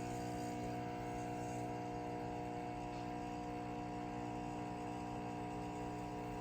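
A steady hum made of several fixed tones, holding level without change.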